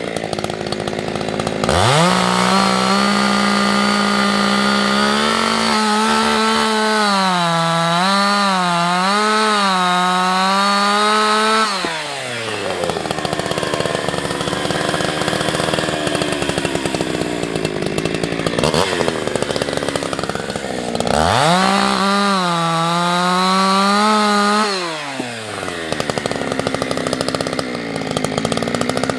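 Husqvarna 365 X-Torq two-stroke chainsaw run up to full throttle twice, each time for several seconds, its pitch dipping and wavering as the chain is loaded in the cut through beech. Between the two spells and after them it drops back to idle.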